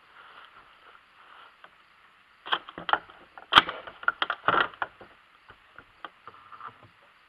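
Handling noise of a Hi-Point 995TS 9mm carbine and its shooting rest: a quick run of sharp metallic clicks and knocks lasting about two seconds, with one sharper knock in the middle, then a few scattered clicks.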